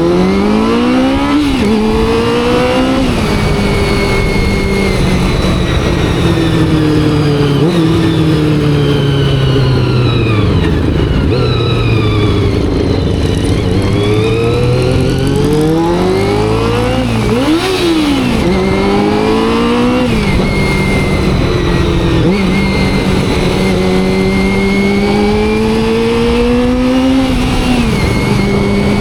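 Honda CBR400RR's carbureted inline-four engine, freshly carb-tuned, heard through its exhaust under way: it revs up through the gears with a sharp drop in pitch at each upshift, eases off and slows around the middle, then pulls up through several quick shifts again and holds a steady climb near the end.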